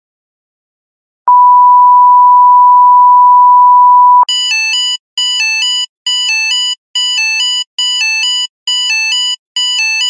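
A steady electronic 1 kHz beep, very loud, held for about three seconds and cut off sharply, like a censor bleep or test tone. Straight after it comes a repeating electronic alert: short bursts of rapidly alternating high beeps, about one and a half bursts a second.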